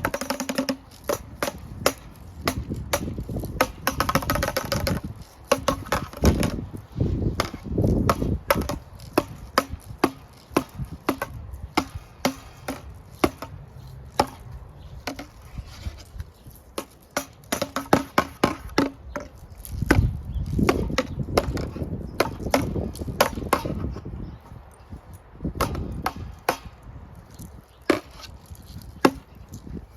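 Spinning ceiling fan blades hitting a baseball bat: a long run of irregular hard whacks and knocks, coming thick and fast at times. A brief steady hum rises and falls a few times among the hits.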